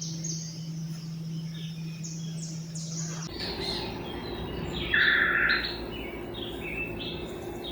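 Several wild songbirds chirping and calling, first a run of short, quick, falling chirps over a low steady hum. About three seconds in the background changes and varied calls follow, the loudest a short buzzy call about five seconds in.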